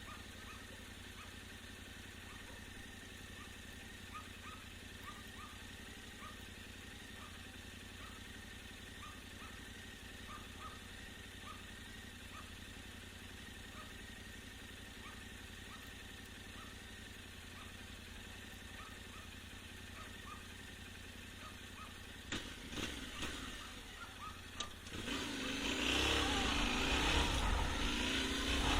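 Faint steady background with a soft chirp repeating about once a second. A few sharp clicks come near the end, then a Yamaha Ténéré 700's parallel-twin engine starts and runs, getting louder in the last few seconds.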